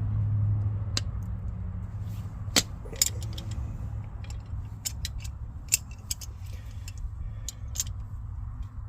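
Metal hand tools and brake parts clinking and tapping as a seized drum-brake slack adjuster is handled: a scattered run of sharp metallic clicks, over a steady low hum.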